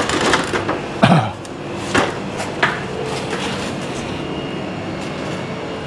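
A few sharp knocks and clicks, about four in the first three seconds, over a steady background hum.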